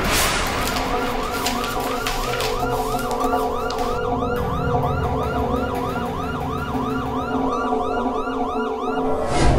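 A siren warbling in quick rising-and-falling whoops, about three a second, over a steady hum of several held low tones; it starts abruptly.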